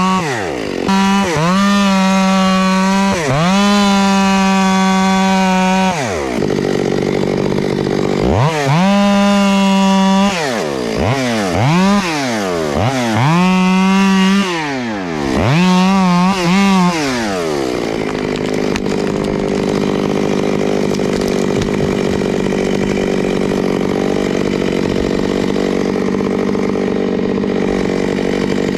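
Chainsaw cutting into a wind-thrown tree. The throttle is held wide open and let off about eight times in the first 18 seconds, the engine note falling away and climbing back each time, then it runs steadily.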